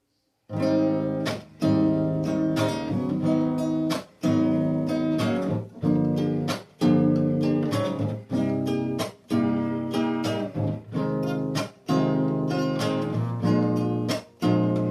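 Acoustic guitar (violão) strumming chords, starting about half a second in, with brief pauses between phrases.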